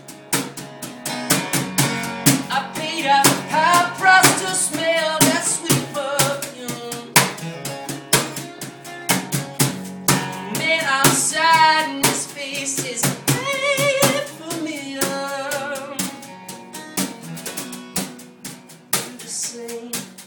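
A rock band playing live in acoustic form: a lead singer's wavering, sustained vocal lines over steady rhythmic strumming and drums, recorded on a phone's microphone. The singing comes in phrases, strongest in the first and middle part, and thins toward the end.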